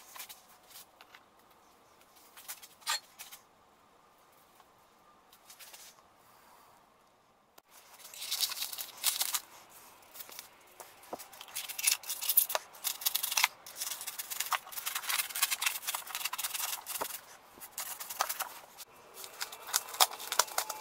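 After a few faint clicks, polystyrene foam is cut with a knife and crumbled and rubbed off a stainless steel sink by hand, giving a dense scratchy squeaking and crackling that starts suddenly about seven seconds in.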